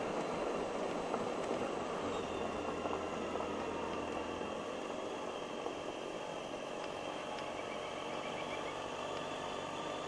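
Suzuki Burgman 650 maxi-scooter running steadily while riding along, its engine mixed with road and wind noise.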